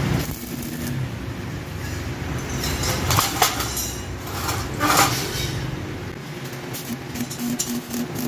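A few metallic clanks as the steel-tube footstool frame is handled, over a steady low hum; then, about seven seconds in, arc welding on the steel frame starts, coming in short regular pulses about three a second.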